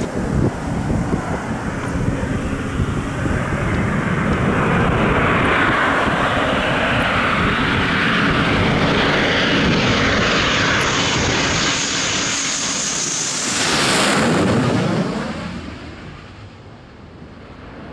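F-15 fighter's twin F100 turbofan engines on landing approach. The jet noise grows louder with a high whine rising in pitch as the jet closes in, peaks as it passes overhead about fourteen seconds in, then falls away quickly.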